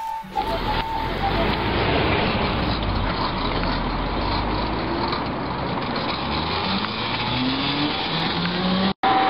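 Homebuilt electric three-wheel cycle-car driving past: a steady rushing noise with a faint motor whine that rises in pitch twice as it speeds up. The sound cuts out for an instant near the end.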